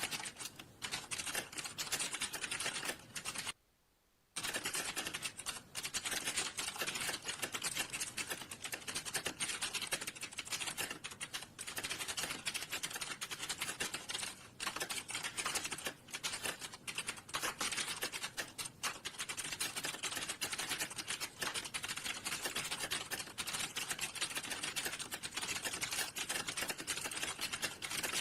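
Fast, continuous typing on a computer keyboard, a dense run of key clicks, broken by a short silence about three and a half seconds in.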